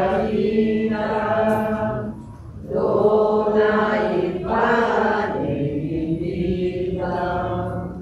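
Voices singing a slow hymn in long held notes, the offertory hymn of the mass, with a short break between phrases about two seconds in.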